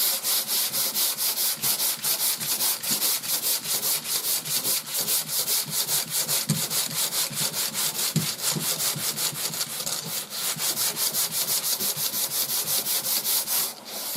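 Sandpaper on a hand sanding block rubbing back and forth over primer surfacer on a car body panel, in quick, even strokes several times a second with a brief break near the end. This is block sanding a guide coat to level the primer until the dark low spots are sanded away.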